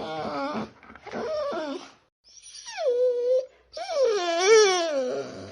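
Dog whining in four drawn-out calls, the third gliding down and then holding, the last the longest and wavering in pitch.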